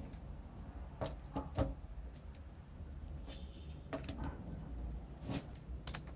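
Scattered light clicks and knocks of a vintage Black and Decker reciprocating saw's metal housing being handled, and a cordless screwdriver being set against its handle screws.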